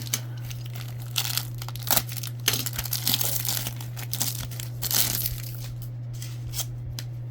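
A trading-card pack wrapper being torn open and crinkled by hand, as a run of irregular crackles from about a second in until past the five-second mark, over a steady low hum.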